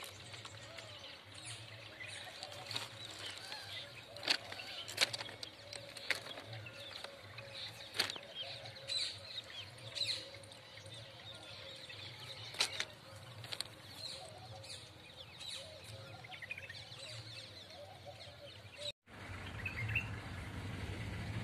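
Quiet rural outdoor ambience with scattered short bird chirps over a faint steady hum. Near the end the sound drops out for an instant and a louder steady rumble takes over.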